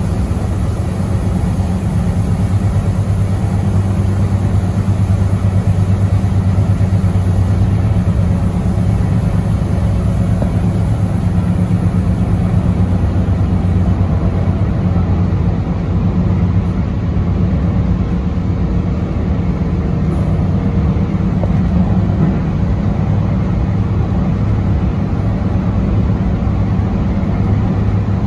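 DART light rail train running along the track, heard from on board: a steady low rumble of wheels and motors with no breaks.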